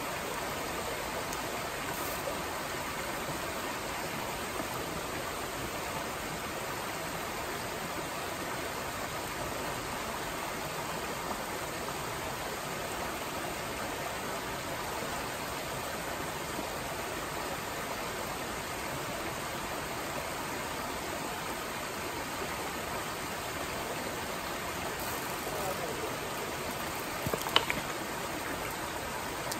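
Small rocky mountain stream rushing over rocks in a riffle: a steady, even rush of water. A brief sharp click near the end.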